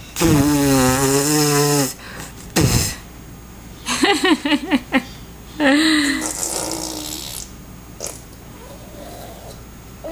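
Baby blowing a long, loud buzzing raspberry with her lips and voice for almost two seconds. A brief low thump follows, then a run of short squeaky babbling sounds and softer coos.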